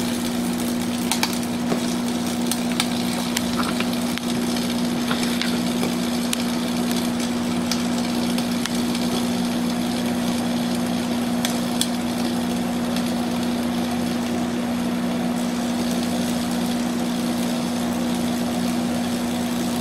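Overloaded Dell Optiplex 780 power supply giving a steady electrical buzz over a hiss, with scattered crackles, as it smokes and fails.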